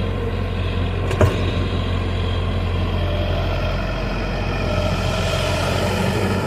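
Excavator's diesel engine running steadily with a deep hum, and a single sharp knock about a second in.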